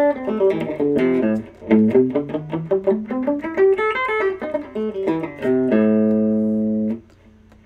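Epiphone Wilshire P90 Reissue electric guitar on its bridge P90 pickup, played through a tube amp: quick single-note runs up and down the strings, then a low note held for about a second before it is muted sharply near the end.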